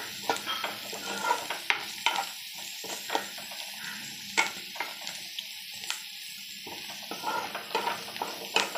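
Chopped cluster beans frying in oil in a pan, sizzling steadily while a steel spoon stirs them, with irregular clicks and scrapes of the spoon on the pan. The beans are being stirred to coat them in ground spices.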